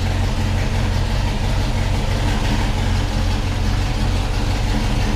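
Built small-block Chevy 355 V8 in a 1979 Chevy Monte Carlo idling steadily as the car creeps forward.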